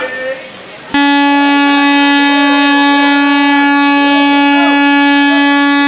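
Indian Railways locomotive horn giving one long, steady blast at a single pitch with many overtones. It starts suddenly about a second in.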